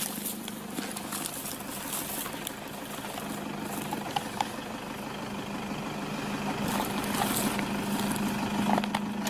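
A vehicle engine idling with a steady hum, with scattered short clicks and rustling over it.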